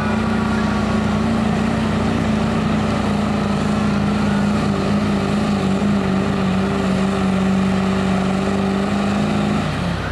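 Stock diesel engine of a Ford Super Duty pickup running hard and steady under full load, dragging a weight-transfer pulling sled. It lets off about ten seconds in as the pull ends.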